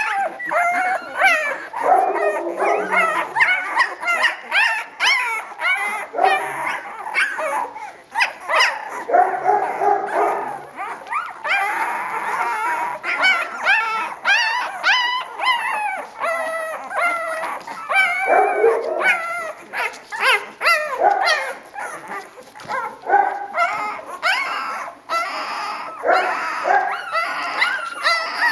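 A litter of puppies squeaking and whimpering, many short, wavering high cries overlapping with hardly a break.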